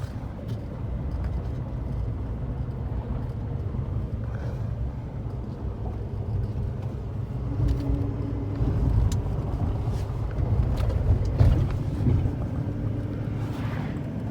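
Loaded semi truck driving, heard from inside the cab: a steady low engine and road drone with a few light clicks and knocks.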